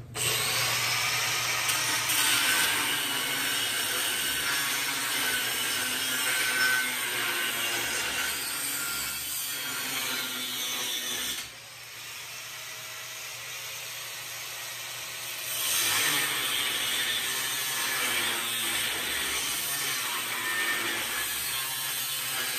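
Hand-held angle grinder working on a steel car frame, a steady scratchy rasp. It eases off about halfway through and bears down again a few seconds later.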